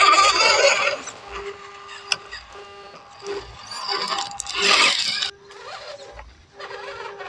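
Small electric motor and gears of an RC crawler, a WPL C24 pickup, whining in short runs as it crawls over dirt. It is loudest as it passes close about four to five seconds in, then cuts off suddenly.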